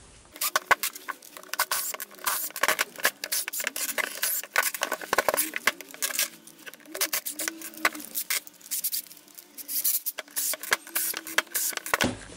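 A small cordless driver runs in short bursts with a wavering whir as it backs screws out of an impact wrench's metal hammer housing. Many sharp clicks and taps of the screws and tools on the table sound along with it.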